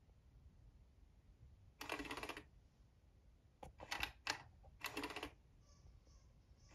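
Battery-powered electronic cat toy's motor running in short, clattering bursts as it moves its feather wand around under the lid: one burst of about half a second, then several shorter ones.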